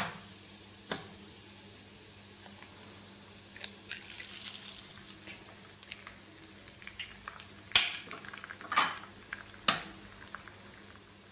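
Oil with a red chilli-garlic paste sizzling gently in a frying pan on low heat, while eggs are cracked open over the pan: a series of sharp cracks, the loudest three coming close together near the end, and a louder hiss about four seconds in.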